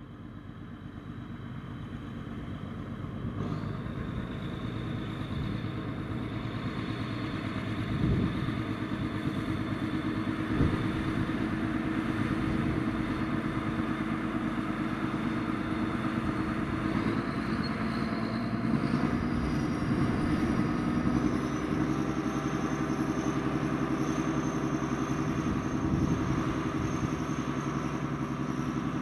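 Diesel shunting locomotive running as it approaches and passes hauling a rake of box vans, growing louder over the first few seconds and then holding steady. Its engine note steps up in pitch a few times in the second half, and there are two sharp knocks about a third of the way in.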